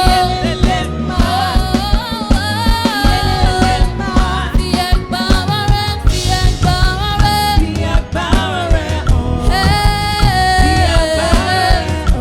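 Gospel worship song: a voice singing long, gliding notes over a drum kit and band.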